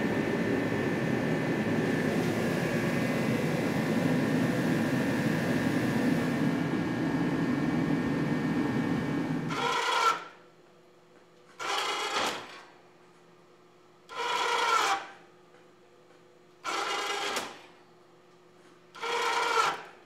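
A steady mechanical running noise cuts off suddenly about halfway through. Then a 12-volt electric winch on a lawn tractor's plow runs in five short bursts of about a second each, a couple of seconds apart, as it raises and lowers the plow blade.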